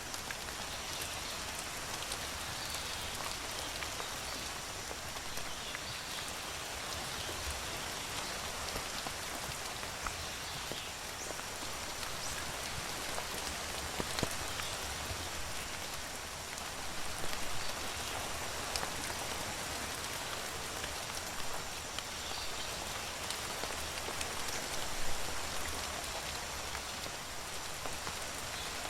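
Steady rain falling, with the patter of many drops and now and then a sharper single drip.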